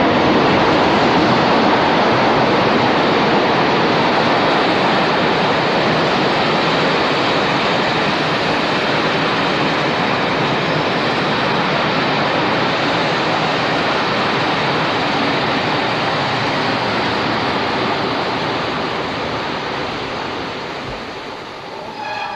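Steady rushing noise of a passenger train's coaches rolling past close by behind a Class 45 diesel locomotive, dying away over the last few seconds.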